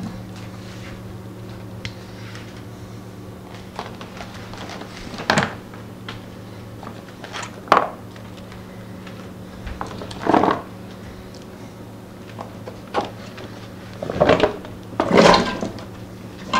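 Vegetables (cabbage, carrots, potatoes) being dropped into a stainless-steel pressure cooker pot from a plastic tub: a series of irregular thuds and clatters, the heaviest near the end as the tub is tipped out, over a steady low hum.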